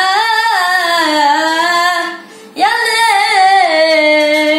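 A boy singing unaccompanied in a high voice: two long, drawn-out phrases with slight bends in pitch, and a short breath between them about two seconds in.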